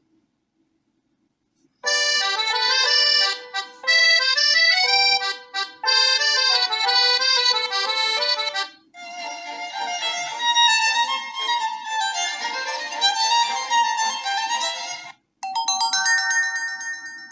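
Preset ringtones of a Huawei T3 8 tablet previewed one after another: a melodic tune starts about two seconds in, a different, busier melody takes over about nine seconds in, and a third begins near the end, each cut off abruptly as the next starts.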